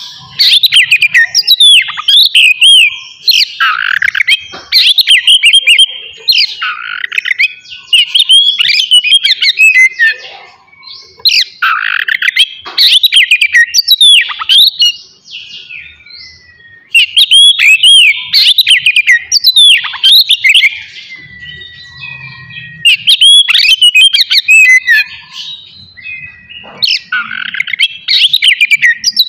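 Oriental magpie-robin singing loudly in rapid bursts of varied whistles and chattering notes, with short pauses between phrases.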